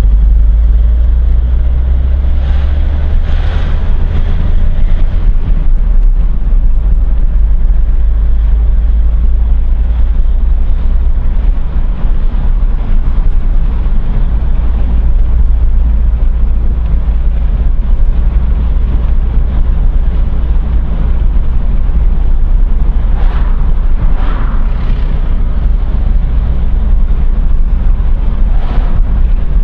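Loud, steady low rumble of a car's engine and tyres heard from inside the cabin while driving along a town street.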